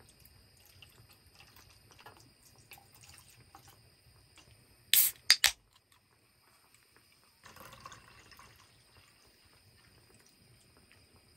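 Soju trickling from a glass bottle into a metal camping mug. About five seconds in, a drink can's pull tab cracks open sharply with two quick clicks. About two seconds later, the canned drink is poured into the mug with a brief fizzing splash.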